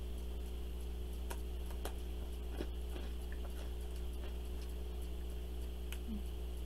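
A handful of sharp, spaced-out crunches as a thick, hard rice cracker is bitten and chewed, over a steady low hum.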